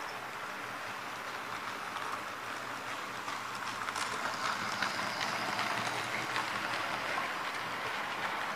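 HO scale model trains rolling past on the layout track: a steady rattling rush of small metal wheels on rails with faint clicks. It gets louder about four seconds in as the scratch-built 2-8-0 steam locomotive passes close by.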